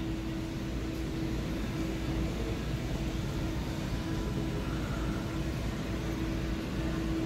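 Steady low hum and hiss of a pet store's background machinery, with a faint held tone that cuts in and out.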